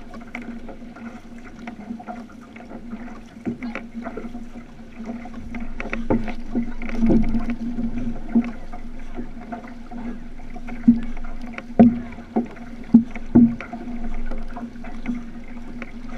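Water rushing and splashing along the hull of a moving outrigger canoe, with a steady low hum throughout. A run of five sharp knocks comes about two-thirds of the way in.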